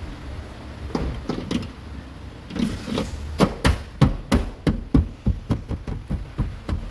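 Plastic interior trim cover of a car tailgate being knocked into place, a run of sharp knocks that settles into about three a second as its clips are pressed home.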